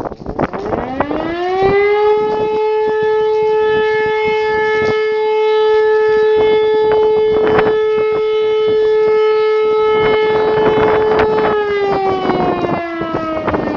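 E57 electric motor siren spinning up from about half a second in to a steady held tone, which it keeps for about ten seconds before winding down with a falling pitch near the end: one long blast of the German fire-alarm signal. Gusts of wind buffet the microphone throughout.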